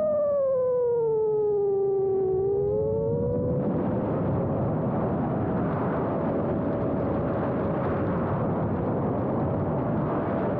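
FPV quadcopter motors and propellers whining. The pitch dips over the first two seconds, then climbs back and holds steady, with a thicker rush of noise from about three and a half seconds in.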